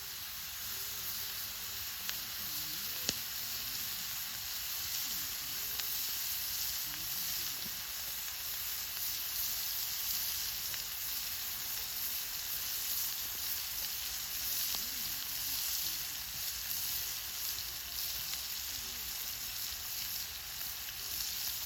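Food frying in a hot pan: a steady sizzle with a few faint clicks.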